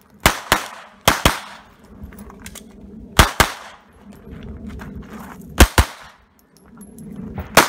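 Pistol shots fired in quick pairs about a quarter second apart, four pairs with gaps of one to two seconds between them and another shot at the end. Each shot is sharp and trails off in a short echo.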